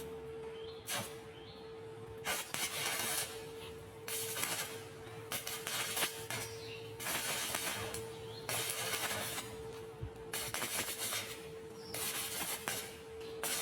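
Background music with one steady held note, over repeated bursts of crackling, sizzling hiss from arc welding, each lasting about half a second to a second and a half.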